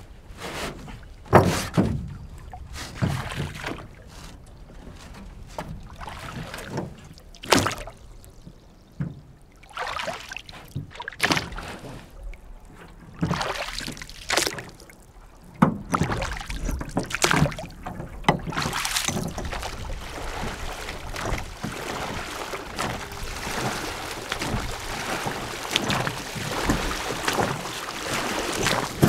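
A small aluminium rowboat being rowed, with oar strokes splashing and sharp, irregular knocks of the oars against the oarlocks and metal hull. A steadier rushing of water and wind takes over in the last third.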